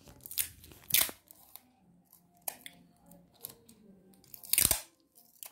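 A handful of short rasping tears, the longest and loudest near the end: adhesive tape being pulled off its roll and torn while wrapping small tissue-paper balls.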